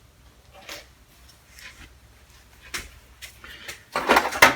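Metal hand tools clinking and clattering as they are handled in a toolbox tray: scattered light clicks, then a louder clatter near the end.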